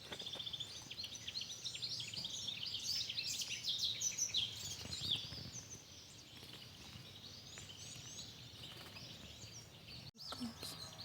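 Several wild birds chirping and singing at once in a morning chorus, with quick trills and short whistled notes, busiest in the first half and thinning out later. The sound cuts out for an instant near the end.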